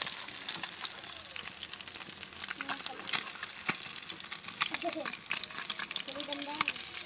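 Tilapia frying in hot oil: a steady sizzle with frequent small crackling pops.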